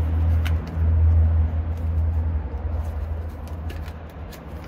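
Road traffic: a vehicle's low engine rumble, loud at first and fading away over a few seconds.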